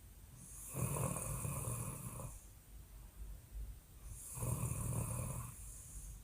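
A woman snoring loudly: two long snores, each lasting about two seconds, about three and a half seconds apart.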